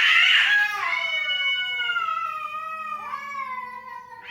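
Cats caterwauling: long, drawn-out wails that slowly fall in pitch and overlap, with a harsh loud cry at the start and a fresh wail rising in about three seconds in. The cries sound like a child crying.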